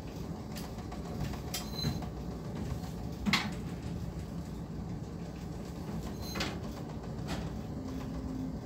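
Steady low rumble of wind and sea on a bulk carrier's open deck in rough weather, with a handful of sharp knocks, the loudest a little over three seconds in.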